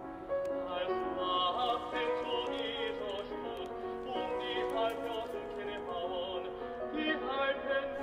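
Music: a slow classical-style piece with a singing voice holding wavering notes.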